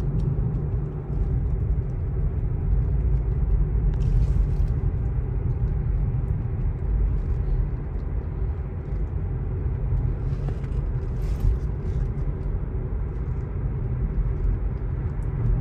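Steady road and tyre rumble inside the cabin of a 2024 Tesla Model 3 electric car on the move.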